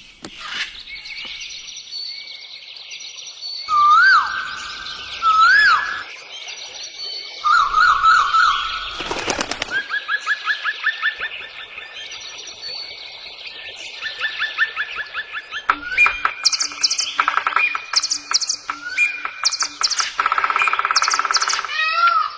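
A bird singing a rapid succession of varied phrases. It gives two loud whistled swoops about four and five and a half seconds in, then a trill, then a long run of rising chirps, and after about sixteen seconds fast clicking, alarm-like sequences.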